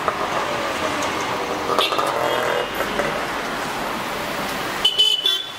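Road traffic passing, with engine tones sliding as vehicles go by. A vehicle horn toots briefly near the end.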